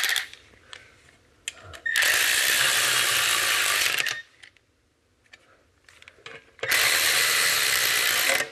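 Milwaukee M12 cordless ratchet running in two bursts of about two seconds each, driving bolts, with a few light tool clicks between the bursts.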